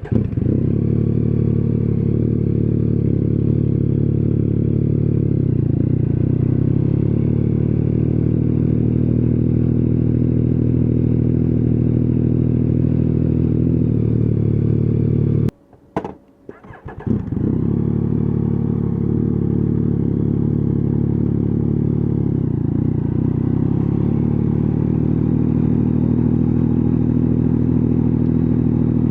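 Motorcycle engine running steadily at idle, recorded raw close to the bike. About halfway through it breaks off sharply for a second or so, a few clicks follow, and the same steady idle returns.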